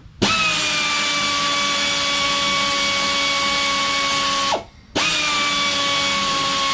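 Pneumatic air ratchet running in two long bursts of about four seconds each, a steady whine over air hiss, the second starting about five seconds in. It is working the fine-thread oval lock nut off the shock absorber's shaft.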